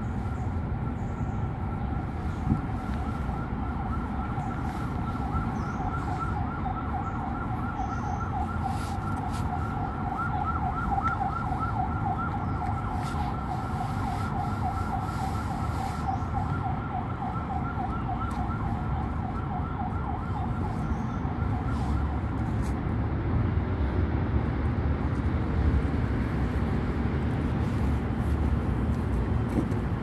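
A steady two-tone warbling whine, siren-like, with a fast regular ripple, fading out about two-thirds of the way through. Beneath it is a constant low rumble of city traffic.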